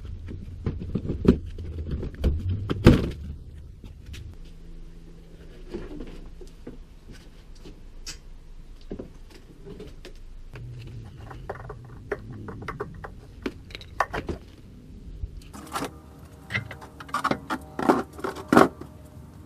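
Hand-tool and trim work on a car's front bumper: scattered knocks, clicks and clatter of tools and plastic parts being handled, with a cluster of short squeaks and knocks near the end.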